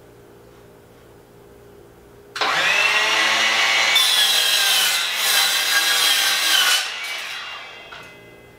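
DeWalt 20V cordless 7-1/4-inch sliding miter saw (DCS361) starting up about two seconds in with a rising whine. Its blade cuts through a wooden board for about three seconds, then the motor is released and the blade winds down.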